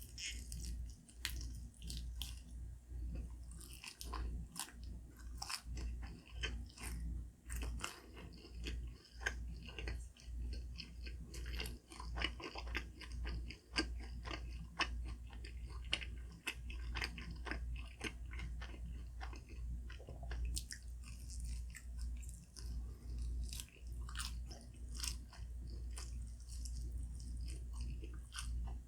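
Close-miked chewing and biting of dim sum: a steady run of irregular wet clicks and soft crunches of a mouth working through food.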